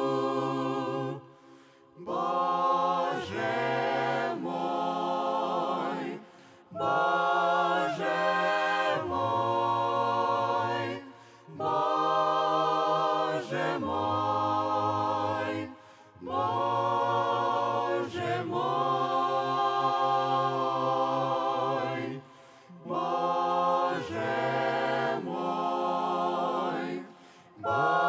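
A mixed ensemble of men's and women's voices singing a cappella in harmony, in phrases of a few seconds separated by brief pauses for breath.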